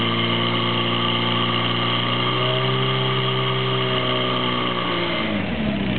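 Portable fire pump's engine running flat out while it pushes water through the attack hoses, then slowing with a falling pitch about five seconds in as it is throttled back.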